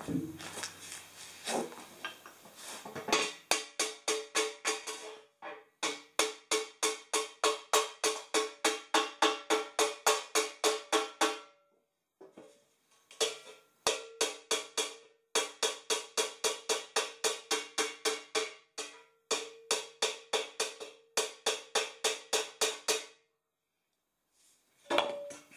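Hammer blows on the dented end of a metal exhaust pipe, about three a second in runs of several seconds with short pauses, each strike ringing briefly: the pipe end being battered round.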